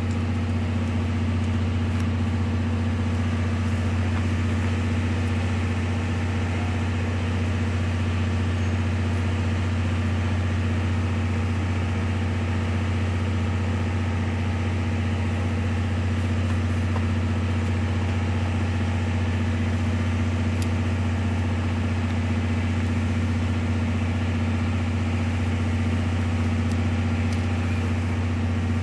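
JNR DE10 diesel-hydraulic locomotive's V12 diesel engine idling with a steady, deep hum that does not change in pitch or loudness.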